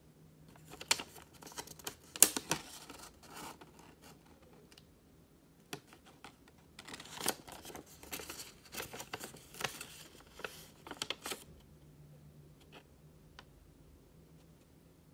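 Sheet of origami paper being folded and creased by hand: crisp rustling and crackling in two spells, one about a second in and a longer one around the middle.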